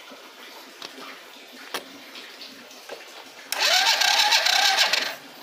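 Electric starter of a Traxx Moby 50cc four-stroke scooter cranking the engine for about a second and a half with a wavering whine, after a couple of light clicks. It stops without the engine catching, on a bike that won't start even though its spark is good.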